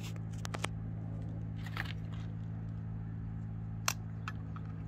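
A steady low hum with a few sharp clicks and taps scattered through it.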